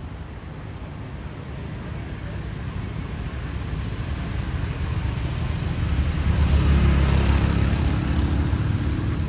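A motor vehicle approaching and passing, its engine and tyre noise swelling gradually to its loudest about two-thirds of the way in.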